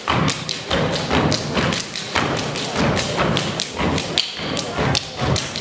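Step team stomping and clapping in a fast rhythm: a dense run of sharp, loud hits.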